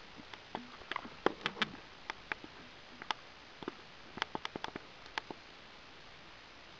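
Faint, irregular clicks and light taps, scattered over the first five seconds or so: handling noise from a metal camping-stove butane canister being turned in the hand.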